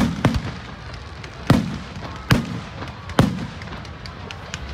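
Aerial fireworks bursting: a series of sharp bangs, two close together at first and then about one a second, each followed by a low rumbling echo, with a fainter crack near the end.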